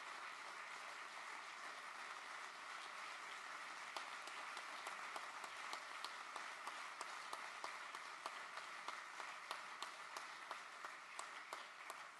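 Audience applauding in a large hall: a steady patter of many hands clapping, with separate claps standing out more clearly in the later part.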